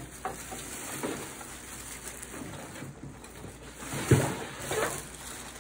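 Plastic garbage bag rustling as it is gathered and lifted out of a stainless steel trash can, with a single thump about four seconds in.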